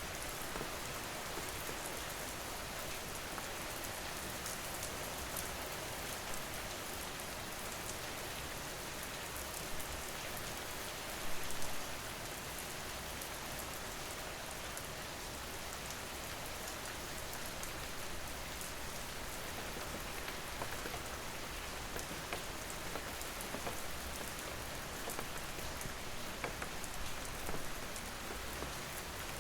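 Steady rain falling, with many separate drop ticks through an even hiss; a brief louder patch comes about eleven seconds in.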